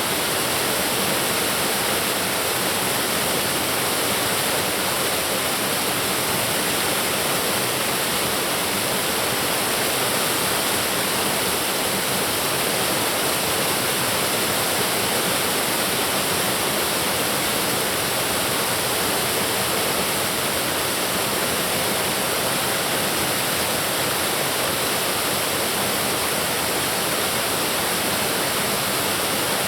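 Waterfall rushing: a steady, even hiss of falling water that never changes in level.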